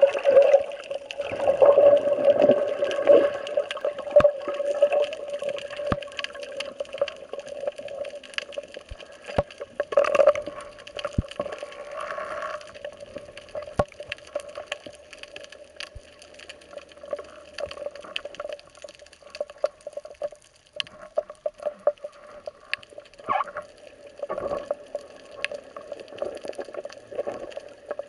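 Underwater ambience: muffled gurgling and swirling water with scattered sharp clicks over a steady low hum, louder in surges near the start and again near the end.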